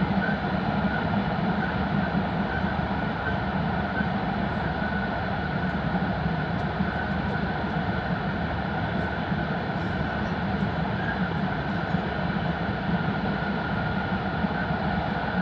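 Steady running noise of an E5 series Shinkansen heard inside the passenger car at speed in a tunnel: a deep, even rumble with a faint steady high tone over it.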